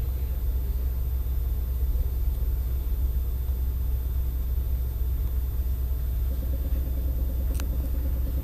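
Steady low-pitched background rumble, with a single faint click about seven and a half seconds in.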